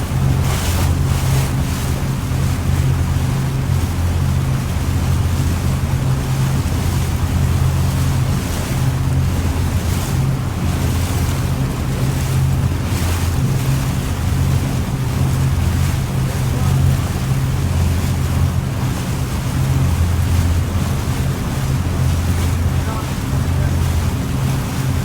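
Ship's engine droning low and steady, with wind buffeting the microphone in gusts and the wash of the sea.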